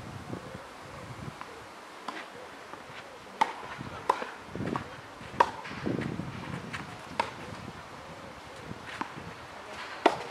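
Tennis ball hit back and forth on a clay court: a string of sharp pops from racket strikes and ball bounces, spaced irregularly, the loudest about three and a half and five and a half seconds in.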